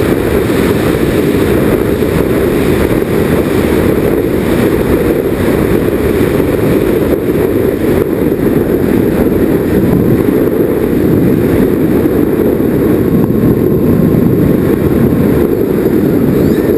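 Nitroplanes Grand Cruiser twin-engine RC plane in flight, heard from its onboard camera: a loud, steady, muffled rush of wind and propeller noise.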